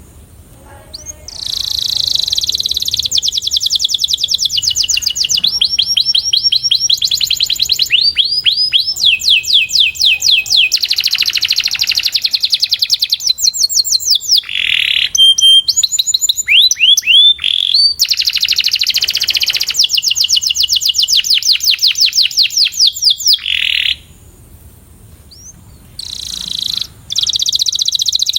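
A canary singing a long song of rapid trills and rolls, each made of fast repeated high notes, with the phrases changing every second or two. The song breaks off briefly near the end and then starts again.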